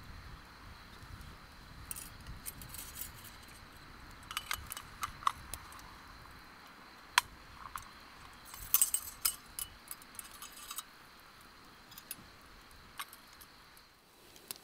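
Small wood fire crackling, with irregular sharp pops and quick clusters of little snaps over a faint steady hiss.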